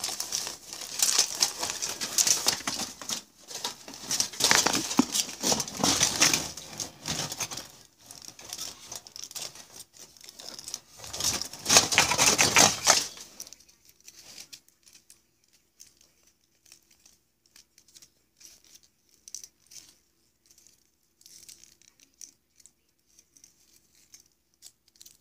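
Aluminium foil crinkling and rustling in irregular bursts as it is handled and cut around a coin, loudest about twelve seconds in; after about thirteen seconds only faint scattered ticks remain.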